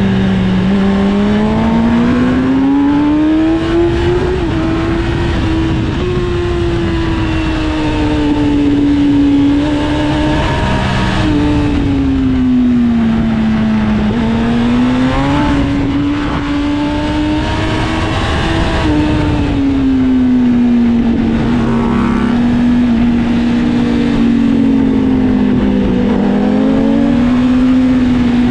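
Sport motorcycle engine on a track lap, heard from onboard: the revs climb and fall repeatedly, with sudden drops in pitch at gear changes, over steady rushing noise.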